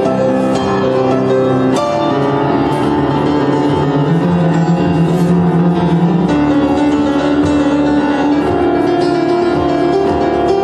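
Yamaha U1 upright piano played with sustained, ringing chords, a fresh chord struck about two seconds in and another change a little past six seconds.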